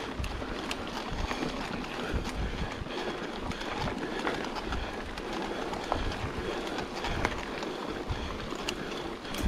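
Mountain bike rolling over a rocky gravel trail: steady tyre noise with scattered clicks and rattles, and wind buffeting the microphone.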